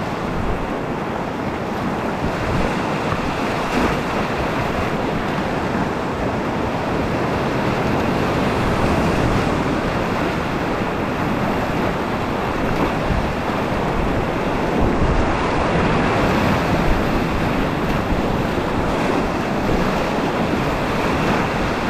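Whitewater rapids rushing around a kayak, heard close up from the boat, a loud steady noise of churning water.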